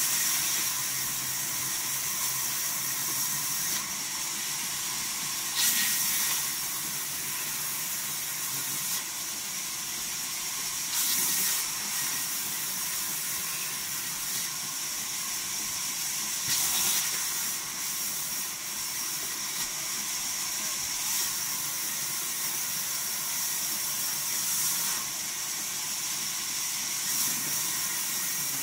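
Vertical band saw running and cutting through timber: a steady hissing rasp of the blade in the wood, with brief louder surges several times.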